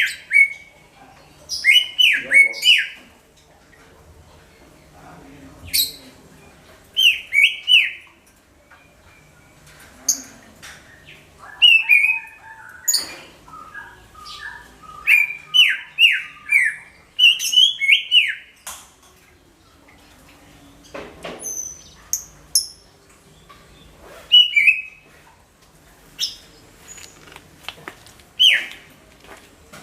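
Green leafbird (cucak ijo) singing loud phrases of short, sweeping whistled notes mixed with sharp chips, in bursts of about a second separated by brief pauses.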